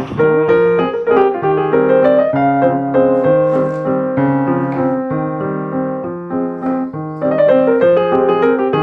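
Background piano music: a gentle melody of single struck notes over steady lower notes.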